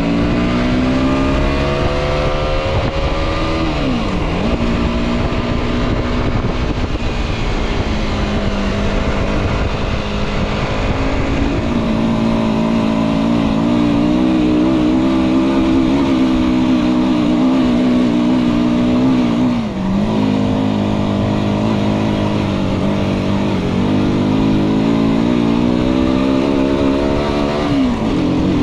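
Aprilia RX 125's single-cylinder four-stroke engine on its stock exhaust, under way: the revs climb and then drop sharply at gear changes a few seconds in, about twenty seconds in and near the end, holding a fairly steady pitch in between.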